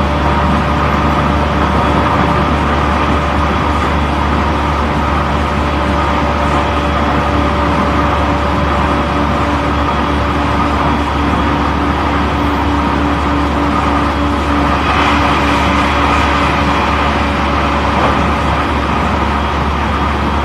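Running sound of a JR East E531 series electric train at speed, heard inside a motor car: a steady rumble of wheels on rail with constant whining tones running through it. One of the tones drops out about 13 seconds in, and the hiss grows a little about 15 seconds in.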